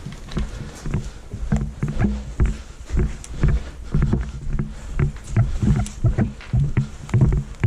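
Footsteps and gear knocking against a body-worn camera, about two thumps a second, with scattered sharp clicks.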